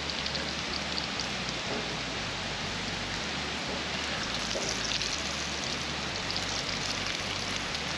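Bratwurst sizzling as it fries over a campfire: a steady crackling hiss with fine spits throughout.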